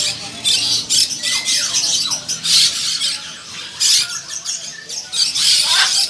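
Caged parrots squawking harshly over and over, with a short downward-sliding whistled call about a second in.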